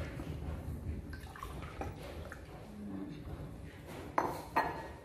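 Drinking glasses and a vacuum flask handled on a tabletop, with two sharp knocks a moment apart about four seconds in as the flask is grabbed.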